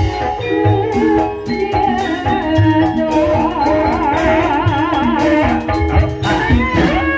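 Banyumasan gamelan music for an ebeg dance: kendang drums beat under ringing metallophone tones, with a wavering high melody line about three seconds in.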